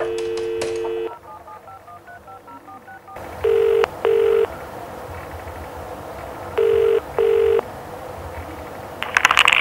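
Telephone call being placed over the line: a steady dial tone for about a second, a quick run of about a dozen touch-tone dialling beeps, then British double-ring ringback tone (two short rings, a pause, two more) over line hiss. A burst of clicks and noise near the end, as the line picks up.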